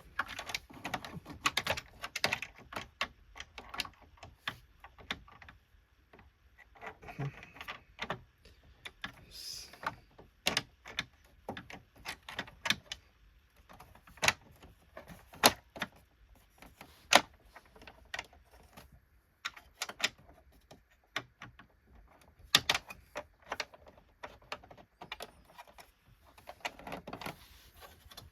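Plastic housing parts of a Hoover Windtunnel Self Propelled vacuum being handled and fitted back together: irregular clicks, knocks and brief rattles as the brush plates are put back on.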